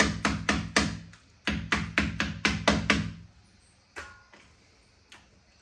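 A knife chopping chicken on a cutting board: rapid blows about four a second in two runs with a short break between, then two single knocks near the end.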